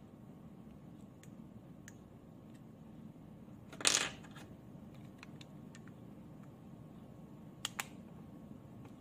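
Small plastic handling sounds of a Hyundai flip key fob shell being put together. A short, louder handling noise comes about four seconds in, and two sharp plastic clicks in quick succession near the end as the shell halves are pressed shut.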